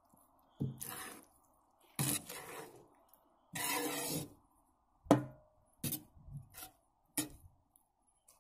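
Metal skimmer scraping and clinking against a cast-iron kazan as cooked plov rice is stirred: three scraping strokes, then several sharp clinks of the skimmer on the pot's rim and side, over a faint steady hiss.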